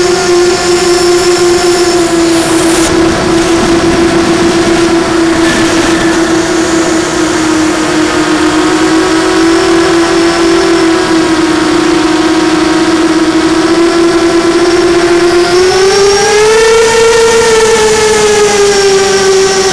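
Blackout Mini H quadcopter's brushless motors and propellers whining steadily in flight, heard from the onboard camera. The pitch drifts with throttle, rising about three-quarters of the way through as the quad climbs, then easing back.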